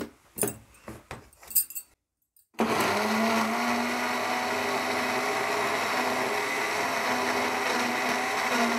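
A few light knocks as the lid and jar of an electric mixer grinder are handled, then, about two and a half seconds in, the mixer grinder starts suddenly and runs at a steady hum, puréeing boiled spinach with water.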